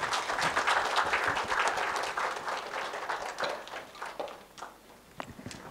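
Audience applauding, loudest at first and dying away about four to five seconds in, with a few last scattered claps near the end.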